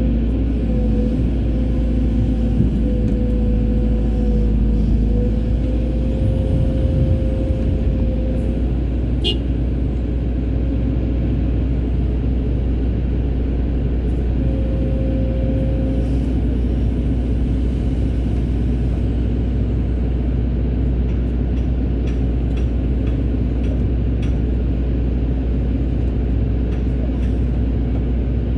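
Hydraulic excavator's diesel engine running steadily under work, with a higher whine that wavers for the first several seconds and briefly again about halfway through.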